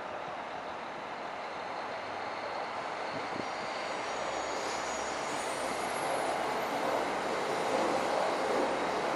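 Northern Ireland Railways CAF-built diesel multiple unit approaching a station platform, its running noise growing steadily louder as it comes in. A faint high squeal comes briefly about five seconds in.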